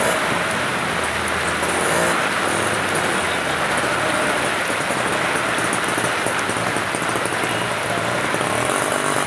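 Heavy rain pouring steadily, with motor vehicles running along a flooded road.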